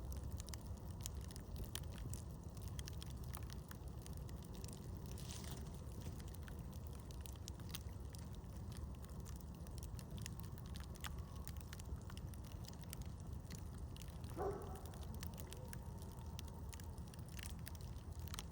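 Campfire crackling: scattered sharp pops and snaps over a steady low rumble, with one brief higher-pitched sound about fourteen seconds in.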